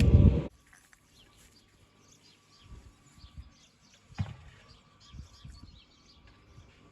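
A loud, steady mechanical running noise cuts off suddenly half a second in. After it, birds chirp over quiet outdoor background, with a few soft low thumps and one sharper knock about four seconds in.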